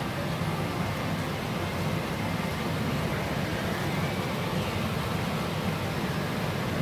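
Steady din of a pachinko parlour: the noise of many machines blended into one even wash of sound.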